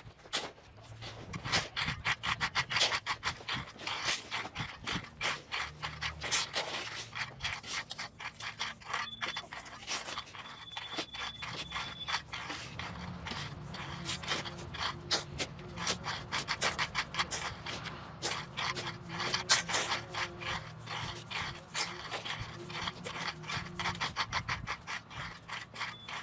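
Rakes and shovels scraping and dragging through dirt and gravel fill in a quick, irregular run of strokes, levelling the fill.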